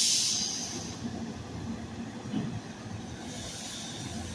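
A sharp, loud hiss of compressed air venting from a GE Silverliner IV electric railcar's pneumatic system, fading over about a second, with a softer hiss starting again about three seconds in, over the steady low hum of the standing train.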